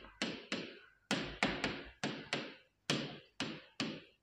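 Stylus tapping and knocking against the glass of an interactive touchscreen display as handwriting is written on it: a run of irregular sharp taps, about three a second.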